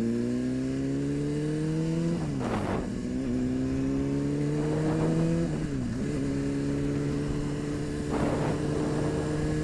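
Honda CBR600RR's inline-four engine pulling under acceleration while the bike is ridden. Its pitch rises slowly and drops sharply at an upshift about two seconds in and again about five and a half seconds in, then holds fairly steady. Two brief gusts of wind noise come through.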